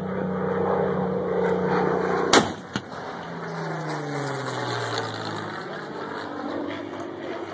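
An 88 mm flak gun fires a single loud shot about two seconds in, with a smaller crack just after. A piston-engined fighter plane drones overhead throughout, its engine note dropping in pitch as it passes and flies away.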